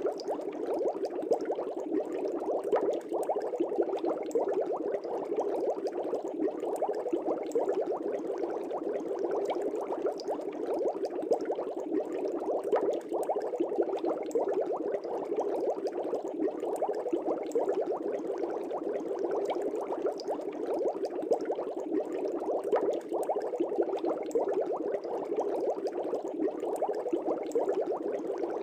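Aquarium air bubbles: water bubbling in a dense, steady stream, with a constant patter of small pops.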